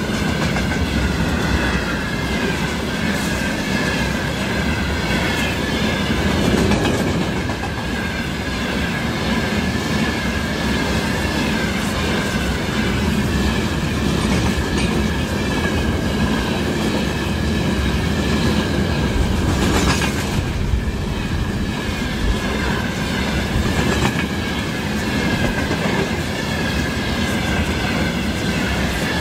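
Freight train behind a 2ES6 Sinara electric locomotive rolling past close by: steady rumble of wagon wheels clicking over rail joints, with a constant high-pitched whine from the wheels on the rails.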